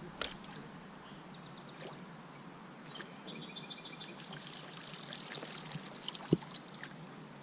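Quiet river ambience of flowing water, with a run of high, repeated chirps in the middle and a single sharp knock about six seconds in.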